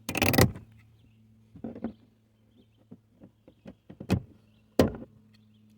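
Plastic trunk-trim grommet being worked loose and pulled out: a short scraping rustle, then scattered plastic clicks and two sharp snaps near the end.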